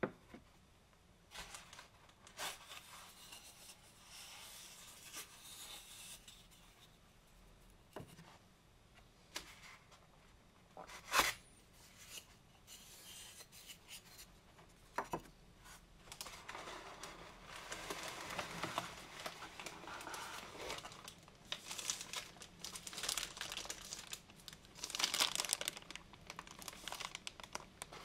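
Clear polyethylene plastic bag crinkling and rustling as a boxed appliance part is handled and pulled out of a foam packing insert, with foam pieces rubbing. A few sharp knocks stand out, the loudest about eleven seconds in, and the crinkling grows denser in the second half.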